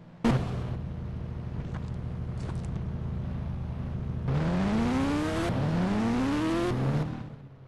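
A vehicle engine accelerating over a steady rush of noise. Its pitch rises twice in a row in the second half, and the sound stops abruptly near the end.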